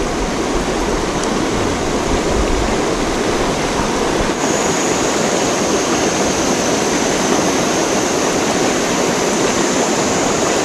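Shallow rocky river rushing over stones in riffles: a steady, even rush of water.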